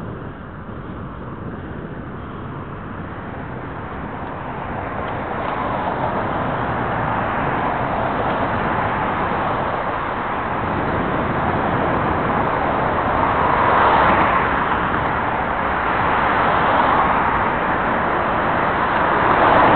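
Road traffic: cars passing on the adjacent multi-lane road as a steady rush that grows louder, swelling about two thirds of the way in and again near the end.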